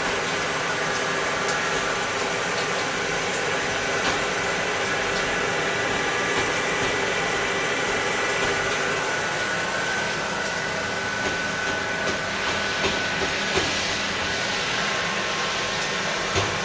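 Brother TC-32A CNC tapping-milling center running: a steady hiss with a faint high whine, and a few light clicks in the last few seconds.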